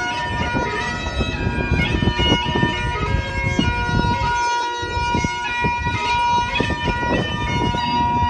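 Bagpipes playing a tune: a melody of stepping notes over one steady held tone.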